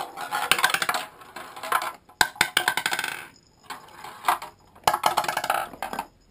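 A plastic ball rattling down the spiral ramps of a toddler's ball-drop tower toy: a fast clatter of clicks that comes in runs, the longest over the first three seconds, with shorter runs later.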